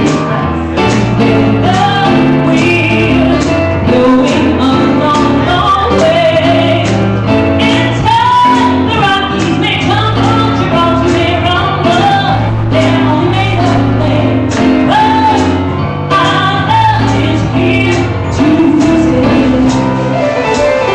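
Jazz vocal number: a singer backed by keyboard, drums and bass, the drums keeping a steady beat.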